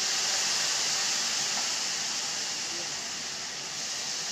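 Citrus juice and crêpe sauce sizzling in a hot copper pan on a tableside burner: a steady, loud hiss.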